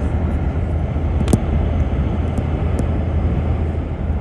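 Steady road and engine noise from inside a moving vehicle, with a single sharp click about a second in.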